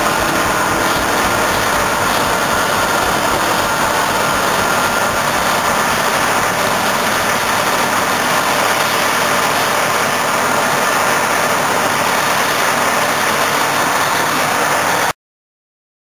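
Claas Lexion 570 combine harvester running while cutting winter barley: a steady, even mechanical rush that cuts off abruptly near the end.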